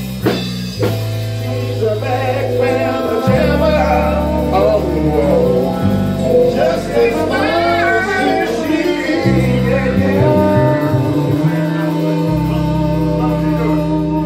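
A small live band playing with a singer: electric bass holding low notes that change every second or two, under keyboard, trombone and drums.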